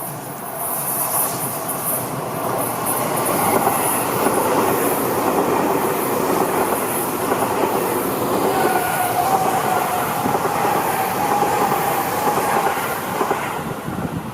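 A Seibu Ikebukuro Line electric train passing the level crossing. It builds over the first couple of seconds, stays loud for about ten seconds, and falls away near the end, with a thin steady whine in the second half.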